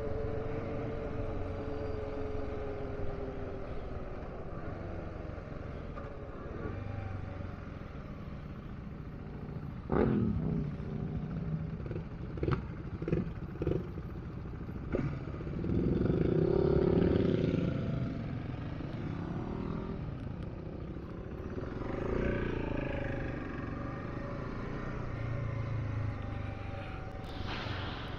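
Dual-sport motorcycle engine running under way, picking up revs about sixteen seconds in and again around twenty-two seconds. A sharp knock about ten seconds in is followed by a few short clattering knocks.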